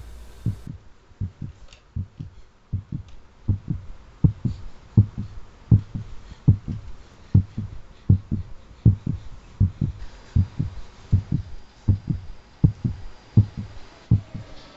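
Heartbeat sound effect: a steady double thump, lub-dub, about every three quarters of a second, growing louder a few seconds in.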